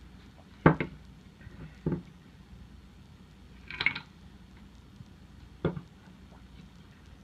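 Homemade pallet-wood puzzle box being handled: four separate sharp knocks and clacks, a second or two apart, as its wooden parts are pushed and turned.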